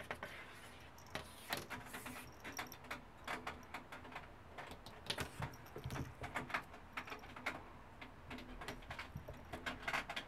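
A kitten's paws and claws scrabbling, tapping and scratching on a towel-covered plastic windowsill as it pounces and twists after a wand toy: many irregular small clicks and scratches.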